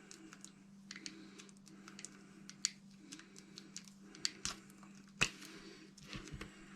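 Adhesive tape being peeled off an RC car's electronic speed control by hand: irregular small clicks, crackles and rustles, with one sharper click about five seconds in, over a steady low hum.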